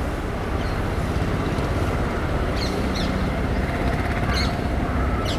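Freight train approaching behind twin WAP7 electric locomotives: a steady low rumble of the locomotives and wagons on the rails, with a few short bird chirps around the middle.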